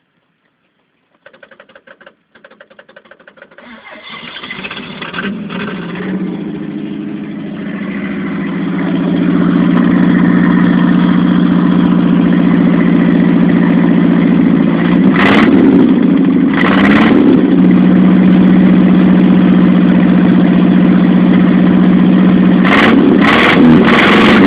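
Chevrolet Opala engine cranked on the starter for a couple of seconds, catching and building up to a steady rumbling run. It is revved briefly twice in the middle and several times in quick succession near the end.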